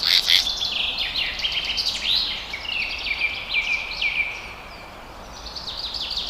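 Rapid high-pitched chirping calls, many short notes and little downward glides in quick succession. They die down about five seconds in and start up again near the end, over a faint steady outdoor hiss.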